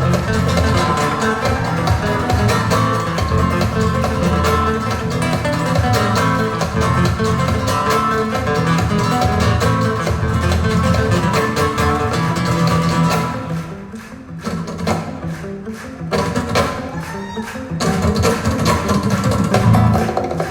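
Recorded music played back over Sonus Faber Aida 2 SE loudspeakers in a hi-fi demonstration, with a quieter passage about two-thirds of the way through.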